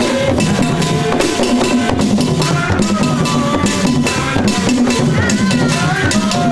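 Traditional Ghanaian drumming in a fast, steady rhythm with voices singing over it, a man's lead voice through a microphone.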